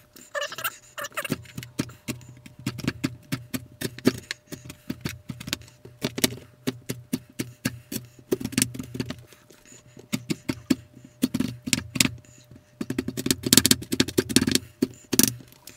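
Wooden spatula cutting and pressing through a set slab of crisp multigrain cereal shapes bound with marshmallow, in a non-stick pan. The cereal crunches and crackles in quick, irregular clicks, with dull thuds as the spatula presses down, heaviest near the end.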